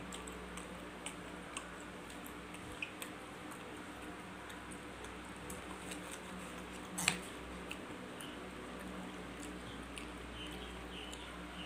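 Knife and fork clicking and scraping on a plate while cutting fried beef meatballs: scattered small ticks, with one louder clink about seven seconds in. A steady low hum sits underneath.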